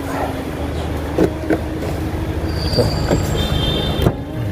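Steady low hum around a car, with a few light knocks, short high electronic beeps about three seconds in, and a sharp click near the end as the tailgate latch of the Kia Sportage releases.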